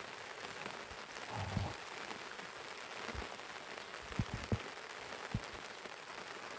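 Heavy snowfall landing on a plastic sheet shelter: a steady hiss, with a few soft knocks in the second half.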